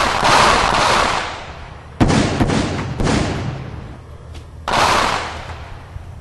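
A series of gunshot-like blasts, each starting suddenly and trailing off over about a second. There are four in all: one at the start, then about two, three and almost five seconds in. They sound like dubbed gunfire sound effects, not the quiet pop of a Nerf blaster.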